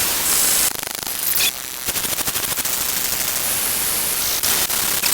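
Harsh hissing static, with a fast run of clicks starting about two seconds in.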